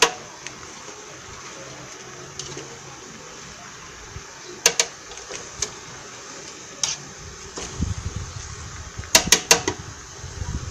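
Chopped sweet potato leaves being stirred with a plastic spoon in an aluminium cooking pot, the spoon knocking against the pot in a few sharp clicks, three together around the middle and three quick ones near the end, over a steady hiss. A low rumble comes in about two-thirds through.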